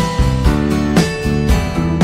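Background instrumental music, with new notes coming in about twice a second.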